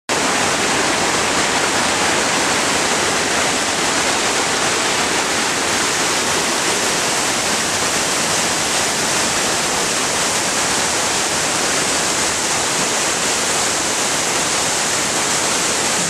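Waterfall and the boulder-strewn stream below it: a steady, even rush of falling and running water.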